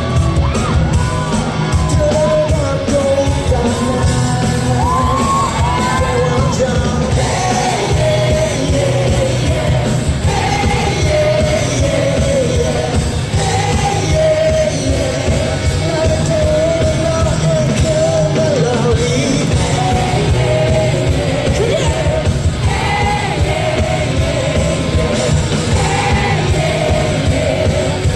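Live rock band playing loudly with a male lead singer's voice over it, in a large concert hall.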